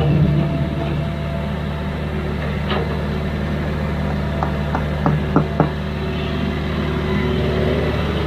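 Diesel excavator engine running steadily, with a handful of sharp clanks in the middle.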